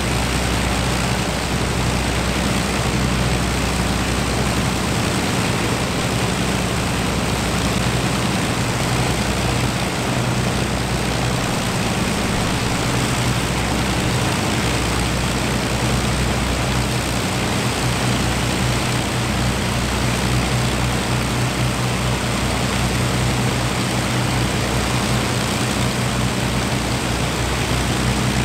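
Avro Lancaster bomber's Rolls-Royce Merlin V12 piston engines running steadily on the ground, the aircraft standing still, with a low, even propeller drone.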